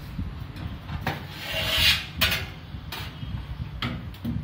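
A metal LED high bay light fixture being handled and tipped over on a tabletop: a scraping slide that rises to the loudest point just before two seconds in, with several knocks about a second apart. A steady low rumble lies underneath.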